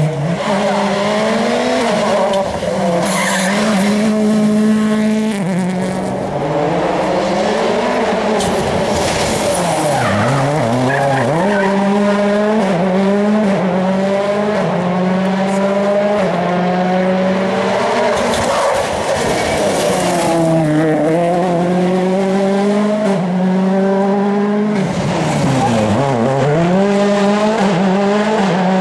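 World Rally Cars' 1.6-litre turbocharged four-cylinder engines revving hard, the pitch climbing through each gear and dropping sharply several times as the cars brake, downshift and pass, with tyre noise on tarmac.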